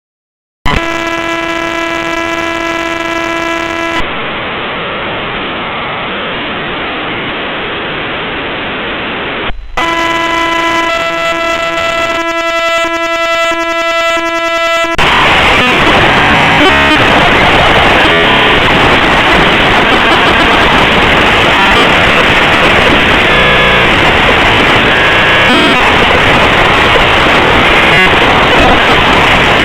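The KDE plasmashell program file's raw bytes played back as audio: harsh digital noise. It starts suddenly under a second in with a steady buzzing tone over hiss, then plain hiss, then a second buzz that stutters, and from about halfway on a dense, loud crackling noise.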